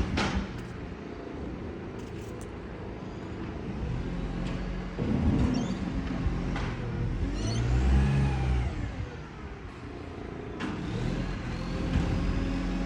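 Engine running with an exhaust leak, with a few short knocks. About seven seconds in it revs once, its pitch rising and falling back within a couple of seconds.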